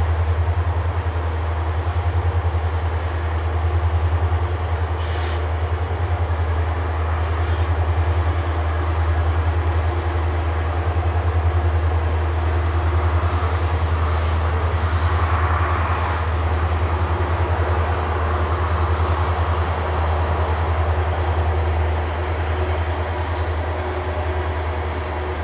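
Freight train rolling past with a loud, steady low rumble that swells and eases about every two seconds.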